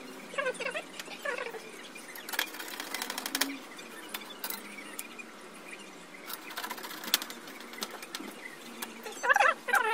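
Screwdriver driving screws into the TV's metal back panel, giving two short runs of rapid ratcheting clicks. Short high squeaky whines come near the start and again, louder, near the end.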